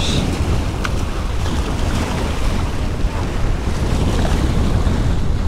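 Strong wind buffeting the microphone over waves washing against jetty rocks, a steady rushing noise.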